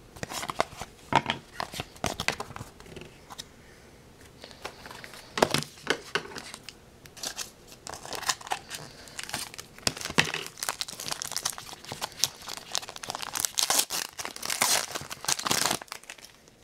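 Foil hockey-card pack wrapper crinkling as it is handled and opened, with cards being handled in between: a run of irregular sharp crackles that grows densest and loudest near the end.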